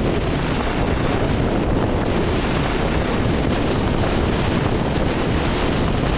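Strong wind blowing across the microphone: a loud, steady rushing noise with no break.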